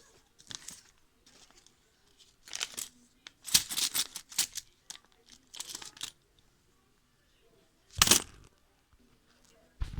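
Irregular rustling and crinkling handling noises in short bursts, with a heavier bump about eight seconds in.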